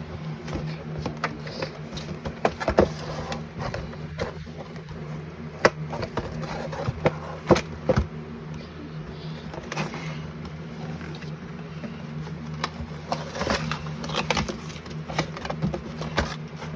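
Action figure packaging being handled and opened: irregular clicks and crackles of plastic and cardboard, a few sharper snaps among them, over a steady low hum.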